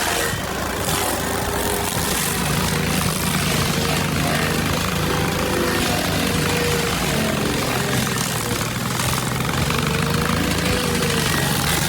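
Stump grinder engine running steadily under load while its cutting wheel grinds into a stump, with a continuous hiss of chips. Background music plays underneath.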